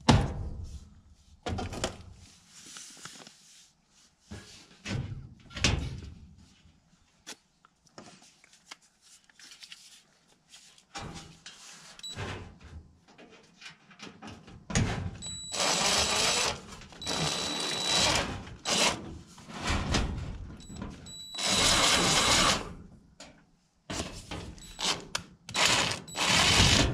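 Cordless driver running screws into galvanized sheet-metal duct, in about four short runs with a high whine in the second half. Before them, scattered knocks and rattles of the sheet-metal panels being handled.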